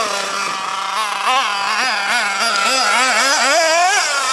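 Hobao Hyper ST truggy's nitro engine running hard, its pitch warbling up and down in quick pulses about three times a second as the throttle is worked, then climbing higher near the end. The engine is running lean from a fuel pressure fault.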